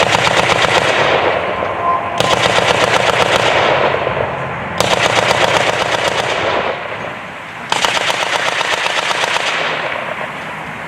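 A .50 caliber M2 Browning machine gun firing four bursts of rapid fire, each about one and a half to two seconds long, with echo trailing after each burst.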